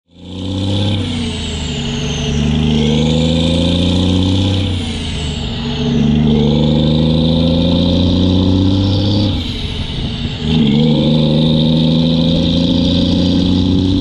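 Heavy diesel vehicle engine accelerating up through the gears: its pitch climbs three times, dropping back at shifts about five and ten seconds in, with a steady hiss of wind over it.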